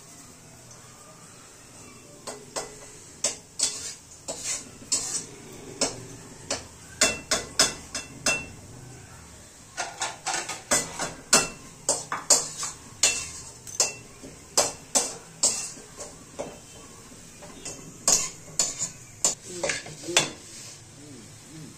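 A metal spoon clinking and scraping against a pan in irregular strokes while stirring, over a faint steady hiss.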